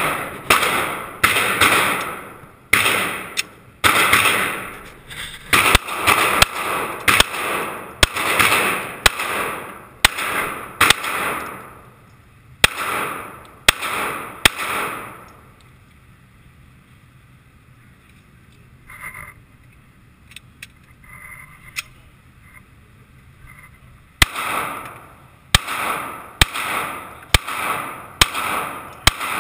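Semi-automatic pistol shots fired in quick succession in an indoor shooting range, each crack followed by an echo off the range walls. About halfway through the firing stops for roughly eight seconds, with only a few faint clicks, then rapid shots start again.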